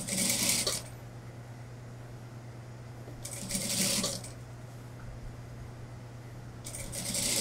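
Industrial lockstitch sewing machine stitching in three short runs, each under a second, about three and a half seconds apart, while the cap of a suit-jacket sleeve is eased in. A steady low hum runs underneath.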